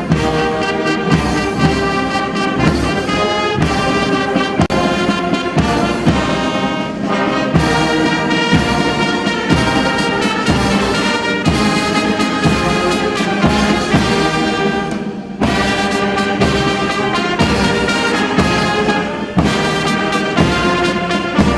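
Brass band music with a steady beat, starting abruptly and running on with a brief dip about two-thirds of the way through.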